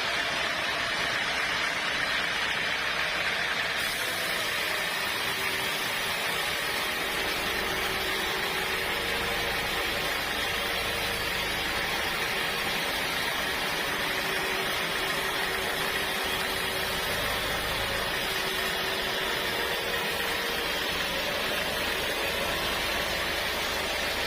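Sawmill saw machinery running steadily, a continuous noisy whir over a low engine-like hum, without letup.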